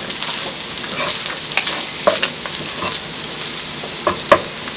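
Cooked rice being stirred with a wooden spatula in a hot pan of sesame oil and cumin seeds: a steady sizzle, broken by several sharp clacks of the spatula against the pan, the loudest near the end.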